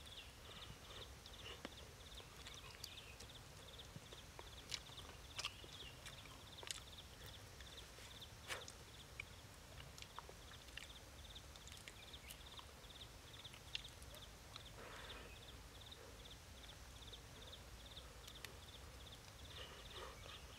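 Near silence: scattered faint small clicks and crackles of fingers peeling shell off a roasted egg, and soft chewing, over a steady high buzz in the background.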